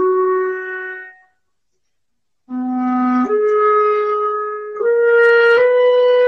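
Solo clarinet playing slow, held notes. One note dies away in the first second, then after a pause of about a second comes a phrase of long notes that climbs step by step.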